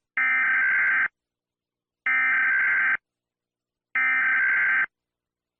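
Three identical electronic alert-tone bursts, each just under a second long with about a second of silence between them, the opening signal of a mock Emergency Alert System (EAS) alarm.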